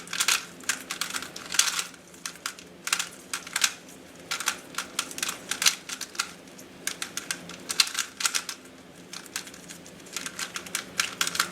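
GAN 356i Bluetooth 3x3 speedcube being turned quickly during a speedsolve: bursts of rapid plastic clicking with short pauses in between.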